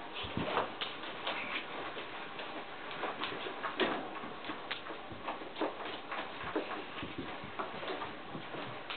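Irregular light taps and scuffles, a few a second: a puppy scrambling on a rug and playing with a boy's hands.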